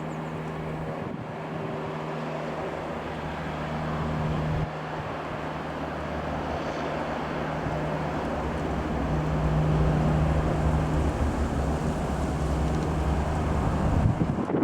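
Single piston-engine Robin R3000-140 light aircraft flying over, its steady propeller-engine drone growing louder, with wind buffeting the microphone.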